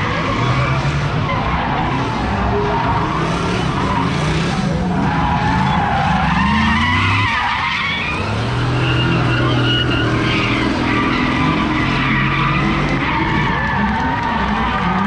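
Nissan Silvia S15 drift car sliding sideways through the corners, its engine revving up and down with the throttle over the steady noise of the rear tyres skidding.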